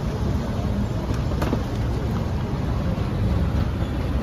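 Busy night-street ambience: a steady low rumble of traffic and crowd noise, with a few faint clicks and clatter.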